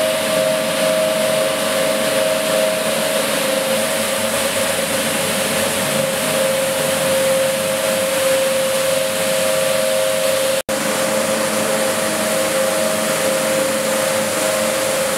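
Cleanvac BRS 260 B four-brush automatic carpet washing machine running: a steady machine hum with two held tones over an even hiss, cut off for an instant about ten and a half seconds in.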